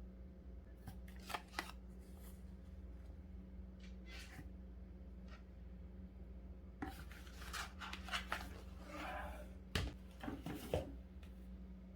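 Packaging and paper being handled: scattered rustles and a few sharp clicks and taps, busiest in the second half, over a steady low hum.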